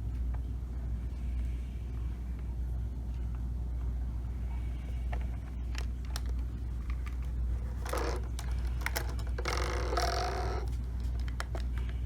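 Steady low hum with a few light clicks, and two short rustling, scraping noises about eight and ten seconds in: handling of a drone controller being looked over.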